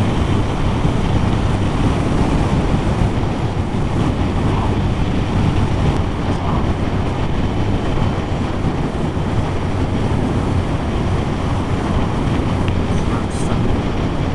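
Motorcycle riding at road speed: steady wind noise on the bike-mounted camera's microphone over the low hum of the bike's engine.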